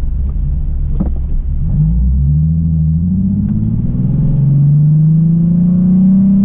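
Nissan 370Z Nismo's 3.7-litre V6 through an AAM Resonated Short Tails axle-back exhaust, heard from inside the cabin. A low rumble at first, then about two seconds in the note climbs steadily in pitch as the car accelerates away.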